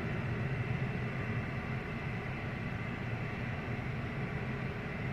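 Steady idling engine hum with an even background hiss and a faint steady high whine.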